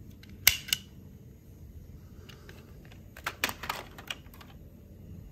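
Toy cars clicking and clacking as they are handled: two sharp clicks about half a second in, then a quick run of clacks about three to four seconds in as a toy car is set down among other toys in a plastic basket.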